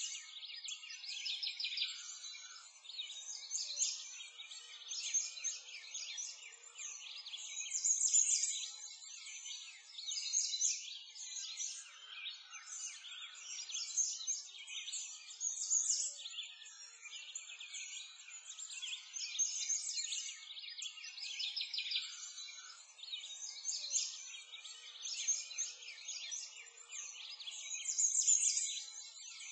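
A dense chorus of small songbirds chirping and twittering, many short high calls overlapping, swelling and fading every second or two.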